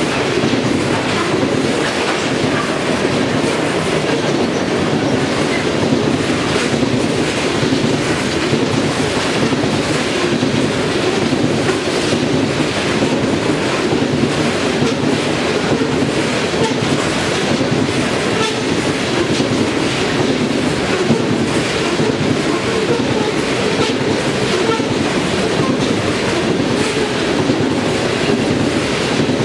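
A train rolling past, its steel wheels clicking over the rail joints over a steady rolling rumble.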